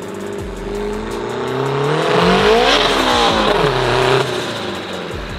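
A car accelerating hard at full throttle and passing close by. The engine note climbs in pitch, is loudest about three seconds in, and eases off sharply just after four seconds.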